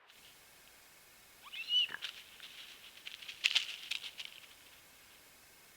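A wild animal's short squeaky call about a second and a half in, followed by a burst of rapid, high chattering clicks.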